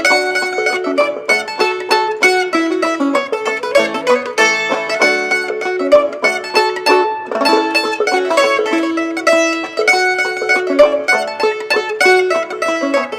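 Mandolin and clawhammer banjo playing an old-time fiddle tune together, the banjo fitted with a new rawhide head.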